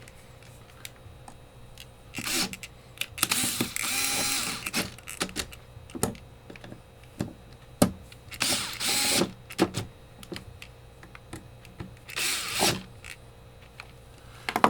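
Metal parts of a Northwestern gumball machine coin mechanism clicking and scraping as it is fitted back together by hand: scattered sharp clicks with four longer scraping rasps.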